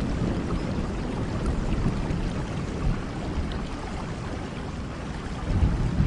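Steady rain falling, an even wash of sound with a strong low rumble underneath.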